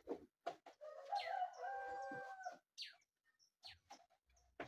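A rooster crowing once, about a second in: one call of about a second and a half that drops from a high onset into a held note. A few short clicks sound around it.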